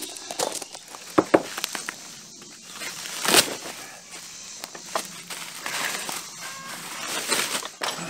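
Plastic and bubble wrap crinkling and rustling as it is pulled off metal backhoe parts, with irregular sharp clicks and knocks. Footsteps on gravel near the start.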